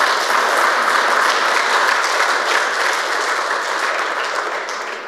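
An audience applauding, a steady wash of many hands clapping that tapers off near the end.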